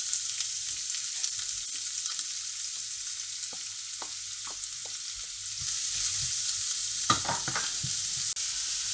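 Diced onions sizzling in hot oil in a frying pan, a steady hiss, with a few light taps and scrapes and a louder clatter about seven seconds in as they are tipped in and stirred.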